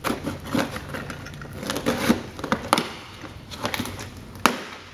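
A small cardboard box being opened by hand: tearing, crackling and rustling of the cardboard and packaging, with a sharp click near the end.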